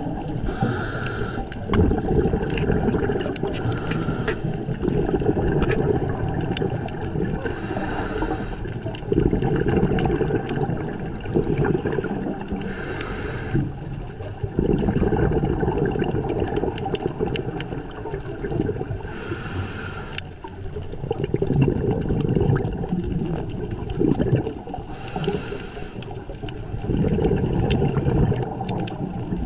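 Scuba diver breathing through a regulator underwater: a short hiss on each inhale, then several seconds of rumbling, gurgling exhaust bubbles, repeating six times in a slow, uneven cycle.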